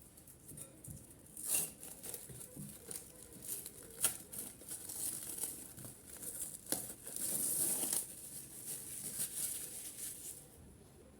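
Kitchen handling sounds while chopped turnip and its juice are strained through a strainer into a glass: scattered light knocks and clicks with crinkling rustles, the longest rustle about seven seconds in.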